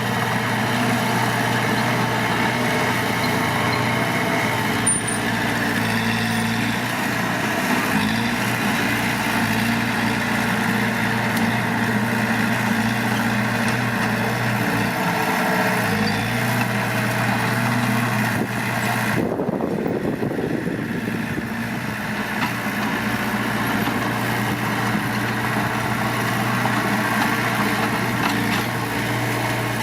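Heavy diesel earthmoving machine engine running steadily under load. About two-thirds of the way through, the high hiss cuts off suddenly and a falling tone follows.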